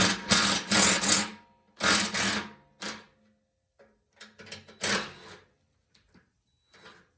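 A tool working the bolts of a snowblower's skid shoes: several bursts of rapid mechanical rattling, the longest in the first second or so, a shorter one about two seconds in and another about five seconds in, then a few faint clicks.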